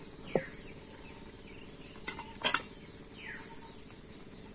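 Insects chirring loudly and steadily at a high pitch, the sound turning into a pulsing beat of about four a second in the second half. One sharp clink comes about two and a half seconds in, along with a few short falling chirps.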